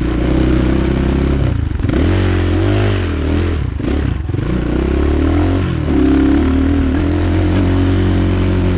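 Dirt bike engine running under load over rough ground, the revs rising and falling as the throttle is worked, with short let-offs a couple of times mid-way and a steadier pull near the end.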